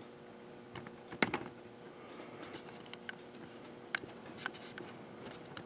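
Scattered light clicks and taps, about half a dozen, the sharpest about a second in, over a faint steady hum of room noise.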